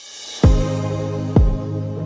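Background music: a swelling whoosh leads into a deep booming bass hit about half a second in, and another about a second later, over a held low chord.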